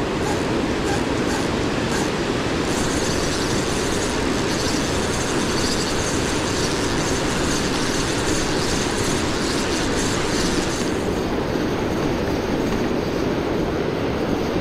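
Steady, loud roar of river water pouring over a low-head dam spillway. For several seconds in the middle, a higher hiss with faint ticks rides on top of the roar.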